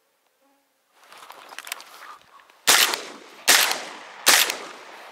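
Three shotgun shots in quick succession, a little under a second apart, each trailing off in an echo. Rustling and handling noise come before the first shot.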